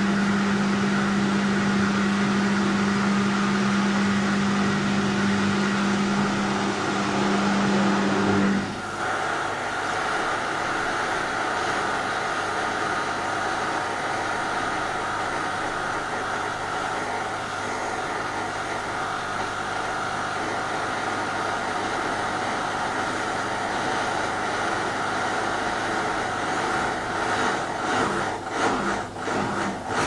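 Whirlpool front-loading washing machine running, on a machine that fails to spin. A steady loud hum cuts off suddenly about nine seconds in, leaving an even mechanical whirr, which turns into a rapid pulsing near the end.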